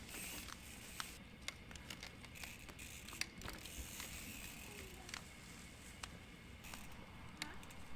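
Mountain bike riding on a dirt trail: faint, scattered clicks and crackles over a low, steady rumble.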